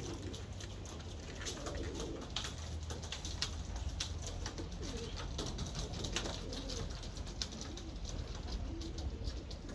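Birmingham roller pigeons cooing, with repeated low, wavering coos and scattered sharp clicks, over a steady low rumble.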